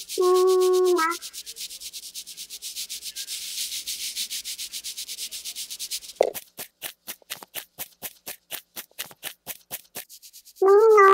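Rhythmic scratchy rubbing strokes: fast and light for the first half, then slower and sharper at about four strokes a second. A short pitched tone sounds in the first second and again near the end.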